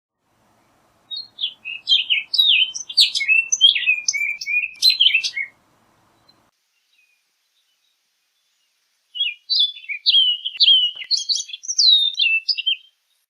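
Orchard oriole singing two songs, each a rapid jumble of varied whistled and slurred notes lasting about four seconds, separated by a pause of a few seconds.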